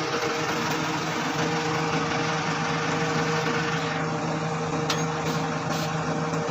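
Dynapac road roller's diesel engine idling steadily, with a few short light clicks about five seconds in.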